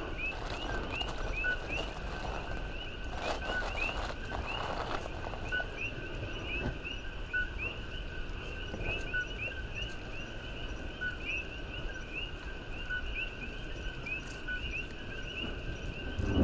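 A chorus of coqui frogs calling at night: many overlapping two-note 'ko-kee' calls, several a second, the second note rising. Under them run a steady high hiss and a low rumble.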